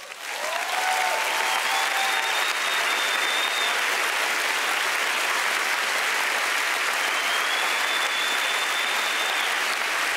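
Large theatre audience applauding steadily, swelling up over the first second, with a brief shout near the start and two long high whistles over the clapping.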